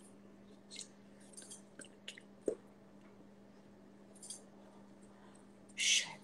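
Soft mouth clicks and short hissing breaths from a person signing with exaggerated mouth movements, over a steady low hum; a sharp click about two and a half seconds in and a louder hiss near the end.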